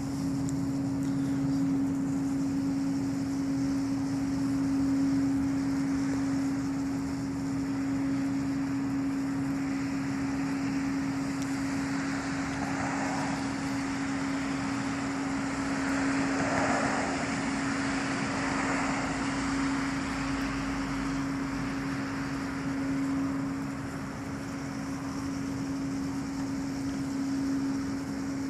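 A steady low hum that holds one pitch throughout, the strange unexplained sound being recorded. A vehicle goes by in the middle, building up and fading away.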